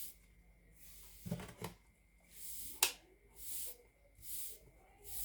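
Small plastic model railway parts handled: two soft knocks and then one sharp click, with a soft hiss that comes and goes about once a second.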